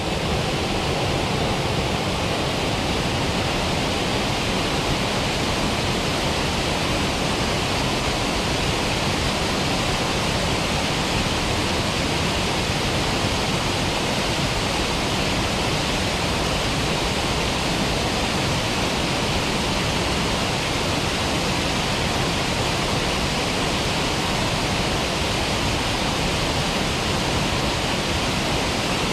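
Small waterfall pouring in several streams over a rock ledge into a pool: a steady, even rush of falling water that does not change.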